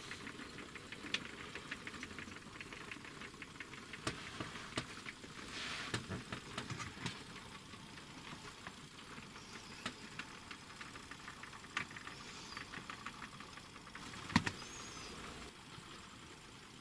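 Model railway freight train running past, its wagon wheels clicking rhythmically over the rail joints with a light running rattle; one sharper, louder click about three-quarters of the way through.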